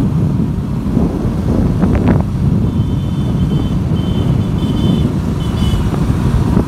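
A Royal Enfield Bullet motorcycle riding along a road, its low engine rumble mixed with heavy wind buffeting on the microphone.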